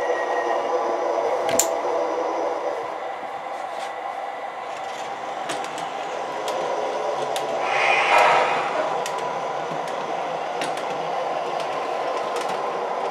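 MTH Proto-Sound 3 O-gauge model PCC streetcars running on three-rail track: a steady hum with a few sharp clicks, and a brief louder rush of noise about eight seconds in.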